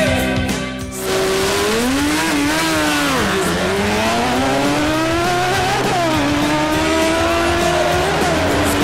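600 cc sport motorcycle engines launching hard from a drag-race start, beginning abruptly about a second in. The revs climb, fall back at each upshift and climb again, through three shifts.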